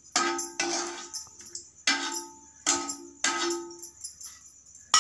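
Steel slotted ladle knocking and scraping against an iron kadai and a steel plate as fried garlic is lifted out: about five metallic clanks, each ringing briefly.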